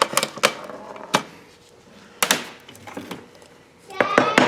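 Sharp knocks and metal clinks from parts and tools being handled and tapped during transfer case reassembly. A few separate knocks come first, then a quick run of clinks with a brief metallic ring near the end.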